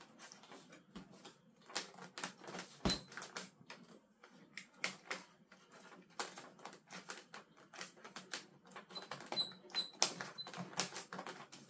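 Irregular light clicks and taps of plastic and foam model-jet parts being handled and pressed together while a part is lined up for its screws, with a sharper knock about three seconds in.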